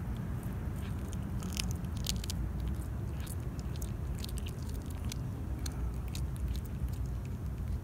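Tabby cat chewing and biting into a dead rat: a rapid, irregular run of sharp wet clicks and crunches from its teeth, thickest in the first half.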